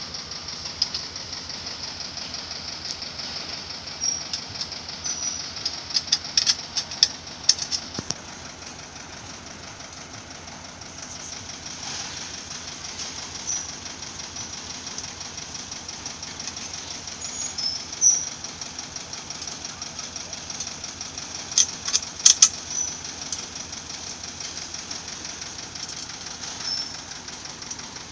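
Scattered metal clanks and knocks as the steel tube parts of a homemade sawhorse are handled and fitted together, in clusters a few seconds apart, over a steady background buzz.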